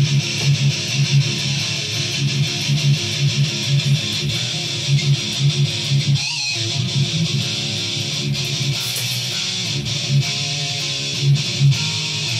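Distorted electric guitar playing a riff with a chugging rhythm, with a short break about six seconds in.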